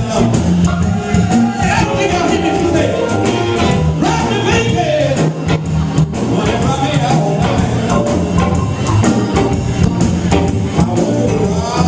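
Live blues band playing, with singing over a steady drum beat.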